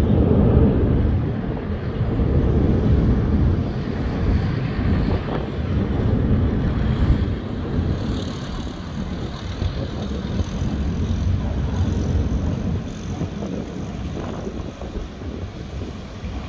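Departing airliner climbing away after takeoff: a low engine rumble that slowly fades as it recedes.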